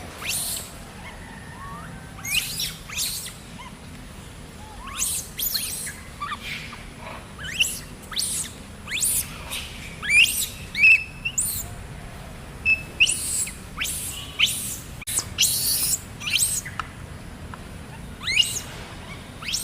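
Many short, shrill, high-pitched chirping calls in quick irregular succession, each sweeping sharply in pitch, over a low steady background hum.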